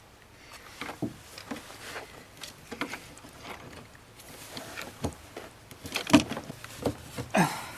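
Scattered clicks and knocks of a new exterior door handle being fitted onto a truck door, growing louder and more frequent in the last couple of seconds.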